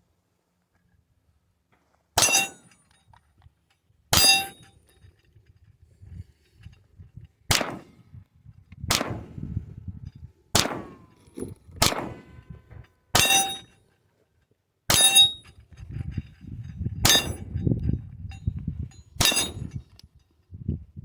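Ten pistol shots fired one at a time, spaced irregularly about one to three seconds apart, several with a metallic ring after the crack. Wind rumbles on the microphone between the later shots.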